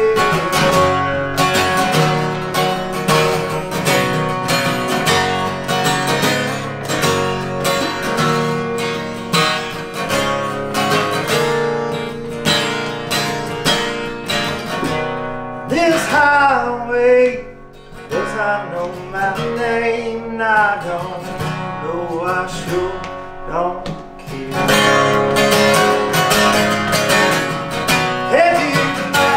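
Acoustic guitar being strummed. It drops to a quieter, sparser passage about halfway through, and the full strumming comes back a few seconds before the end.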